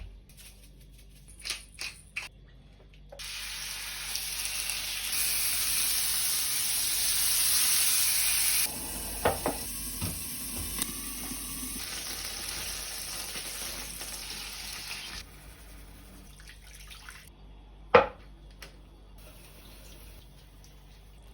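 Water running from a kitchen tap for about twelve seconds, louder at first and then turned lower before it shuts off suddenly. A few clinks sound while it runs, and a single sharp knock comes a few seconds after it stops.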